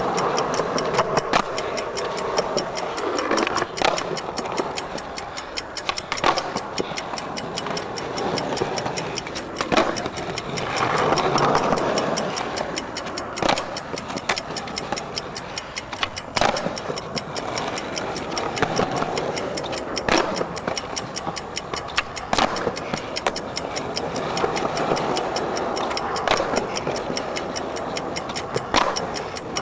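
Wooden skateboard popping and landing nollie 360 flips in quick succession, a sharp clack every two to four seconds. A fast, steady ticking runs underneath throughout.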